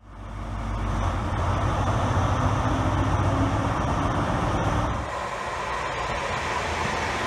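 Class 43 HST diesel power car running in a station, a steady deep engine rumble that fades in at the start. About five seconds in it gives way to the lighter running noise of a Class 323 electric multiple unit moving through a station.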